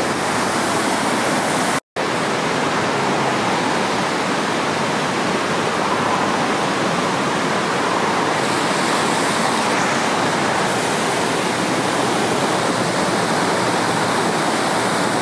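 Steady rushing of a river's whitewater rapids running high after heavy rain. The sound cuts out for a split second about two seconds in.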